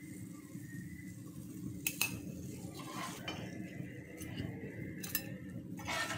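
Metal spatula clinking and scraping against a nonstick frying pan and plate as fried pumpkin chops are lifted out, with a few sharp clinks, the loudest about two seconds in and a couple more near the end.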